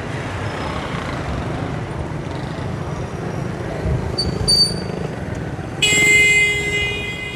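Busy street traffic, with cars and motorcycles passing. A vehicle horn sounds for about a second near the end and is the loudest thing, with two short high beeps a little before it.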